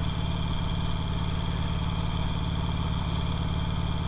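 2008 Harley-Davidson Sportster 883L's 883 cc air-cooled V-twin running steadily at an even, unchanging engine speed.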